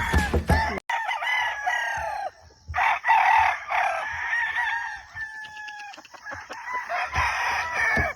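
Several gamefowl roosters crowing, one crow after another and overlapping.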